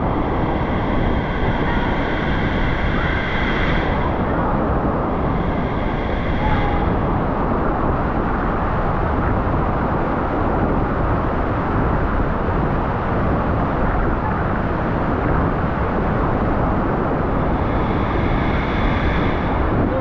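Waterfall: a loud, steady rush of falling water, with a faint higher whine that comes and goes near the start and again near the end.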